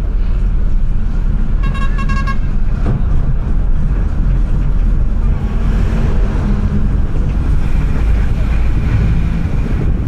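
Steady low rumble of a heavy vehicle's engine and tyres on a concrete road, heard through an open side window, with a quick run of horn toots about two seconds in.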